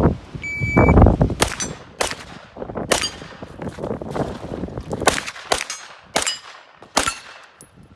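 A shot timer's start beep, then a timed string of about seven gunshots at steel targets, each followed by the ring of a hit steel plate.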